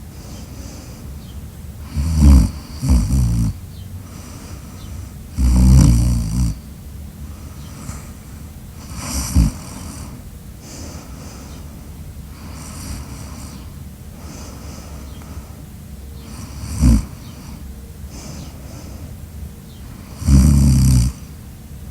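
A sleeper snoring loudly and irregularly: deep, rattling snores every few seconds, some long and some short and snort-like, with quieter breaths between them.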